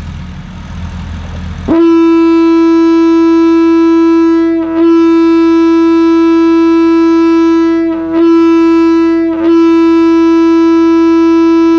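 Leslie A-75 single-chime air horn sounding one loud, steady note that starts about two seconds in and holds. Its pitch and level sag briefly three times before it recovers. A low hum comes before it starts.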